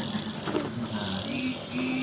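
A simple tune of a few short held notes at stepping pitches, over light rustling.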